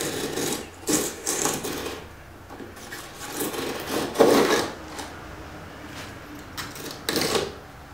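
A knife scraping and slicing through epoxied fiberglass overhanging a wooden kayak's stem, in several short scraping strokes. The loudest comes about four seconds in, and another comes near the end.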